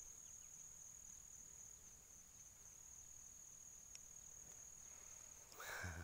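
Faint, steady high-pitched insect call held on one unbroken tone, with a brief rustle near the end.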